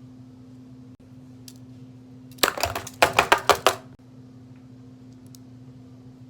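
A quick run of small, hard clicks and taps lasting about a second and a half, starting about two and a half seconds in, over a steady low electrical hum.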